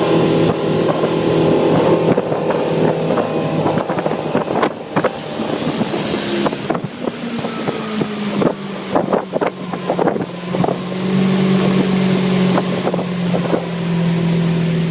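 Motorboat engine running steadily under way, with wind buffeting the microphone and a run of short knocks in the middle.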